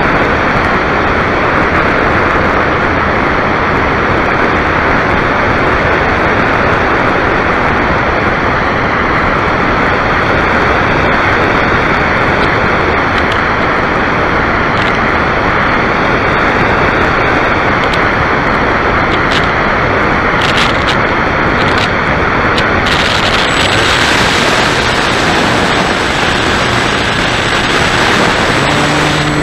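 Steady loud rush of airflow over a model airplane's onboard camera in flight, with the motor quiet as it glides and a few faint clicks about two-thirds in. Just before the end a low steady hum sets in as the motor comes back on.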